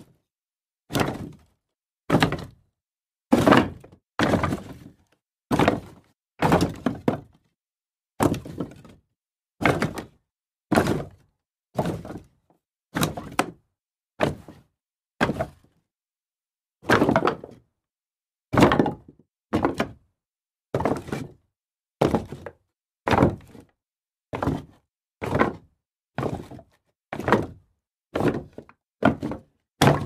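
Pieces of wood tossed down one after another: a series of separate wooden thunks, about one a second, each dying away quickly with silence between.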